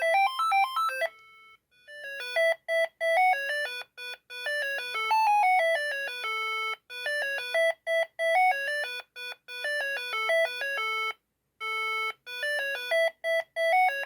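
A Siemens ME45 mobile phone playing one of its built-in ringtones through its small speaker: a quick electronic melody of short notes. There is a brief break about a second and a half in, before a new phrase starts.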